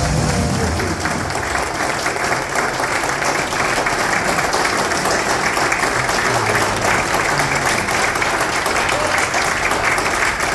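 An audience applauding, a dense steady patter of many hands clapping, with voices mixed in.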